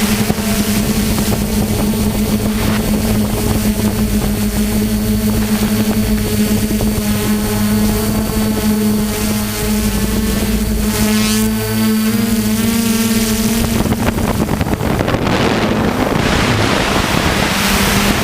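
DJI F450 quadcopter's motors and propellers droning steadily in flight, heard from the on-board GoPro with wind buffeting the microphone. The hum shifts in pitch briefly past the middle, and the wind rush swells over it for a few seconds near the end.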